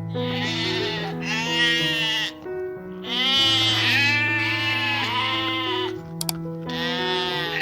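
Sheep bleating: about five quavering bleats, each about a second long, over background music with sustained notes.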